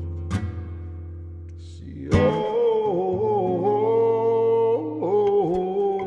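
Music: acoustic guitar playing plucked notes over a low held bass note, joined about two seconds in by a loud, slowly bending melody line that is held for a few seconds at a time.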